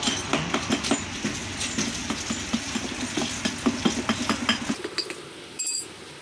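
Flat metal tool scraping and tapping across the top of a lead-acid battery plate stack, a rapid run of scratchy clicks that stops about five seconds in, followed by one sharp metallic clink.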